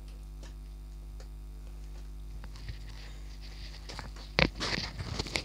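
Steady low hum with faint scattered clicks. About four seconds in, a sudden thump is followed by irregular rustling and clicking.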